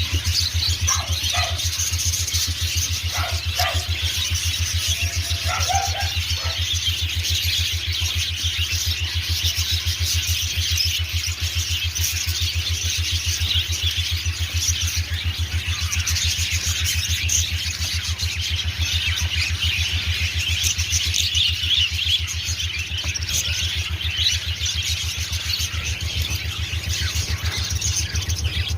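Many small birds chirping together in a dense, unbroken chatter, over a steady low hum. A few short squealing calls stand out in the first six seconds.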